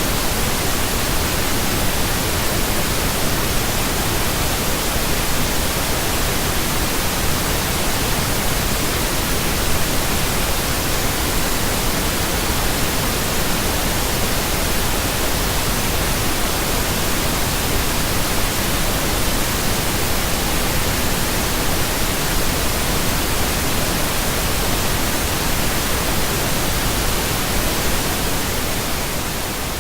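Steady synthetic pink noise, an even hiss across all pitches, beginning to fade out near the end.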